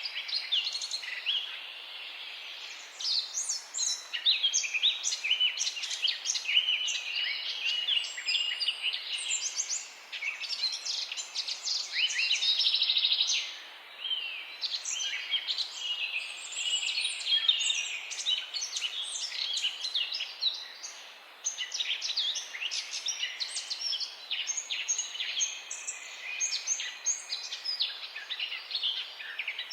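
A chorus of small songbirds chirping and trilling in overlapping short calls over a faint steady background hiss, with one sustained trill about twelve seconds in.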